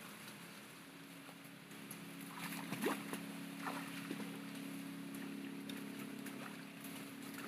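A small boat's engine running steadily with a low, even hum, and a few faint knocks about two to three seconds in.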